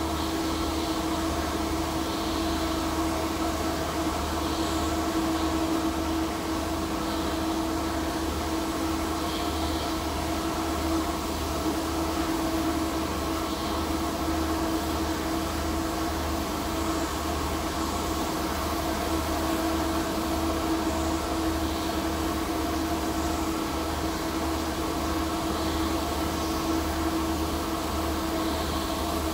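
Steady machine hum from a ventilation blower and welding equipment during TIG welding of alloy steel pipe: a constant droning tone with faint short hisses now and then.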